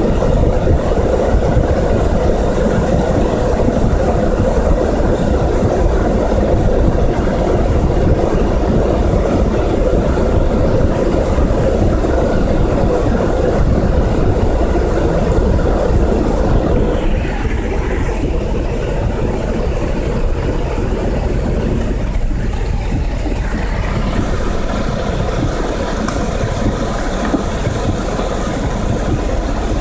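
Flash-flood debris flow of muddy water and rocks rushing across the highway, a loud, steady churning rumble heard from inside a vehicle's cabin. It eases a little past the halfway point.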